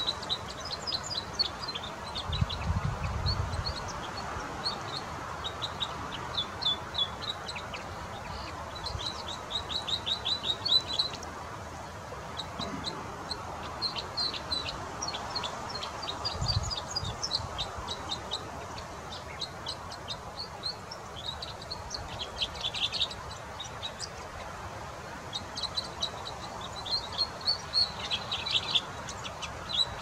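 Red crossbill singing: phrases of quick, high chirps and short trills, repeated with brief pauses.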